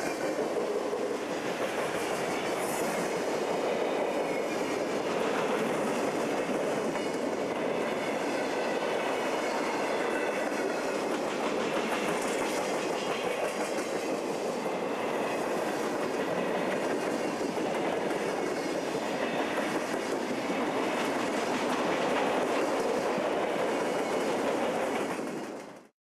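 Freight cars of a long Conrail train rolling past: a steady rumble with the clatter of steel wheels on the rails. The sound fades out abruptly in the last second.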